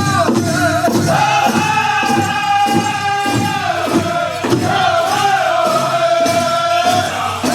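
Southern-style powwow drum group singing a crow hop song: high-pitched voices in unison, holding long notes that bend, over a steady drumbeat.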